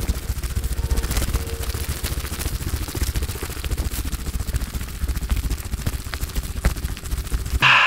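Footsteps crunching through dry leaf litter and twigs, a dense irregular crackle over a low rumble from body movement against the chest-mounted camera. A short bright burst comes right at the end.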